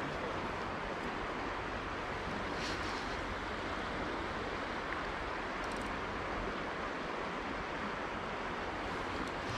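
Steady rushing of river water, with a few faint brief ticks.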